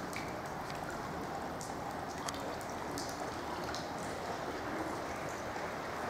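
Steady rush of running water, with scattered small drips and ticks over it.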